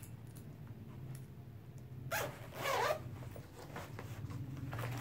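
Zipper on a children's body-armour jacket pulled once about two seconds in, a quick rasp lasting under a second, over a low steady hum.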